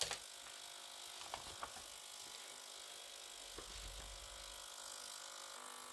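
Ultrasonic glasses and jewellery cleaner running its cleaning cycle: a faint steady buzz, with a few light clicks.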